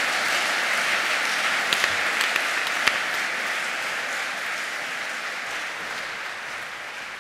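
Audience applauding steadily, the clapping slowly dying away towards the end, with a few sharper single claps standing out about two to three seconds in.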